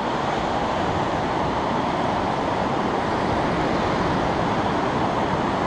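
Ocean surf washing in over shallow water: a steady, even rush.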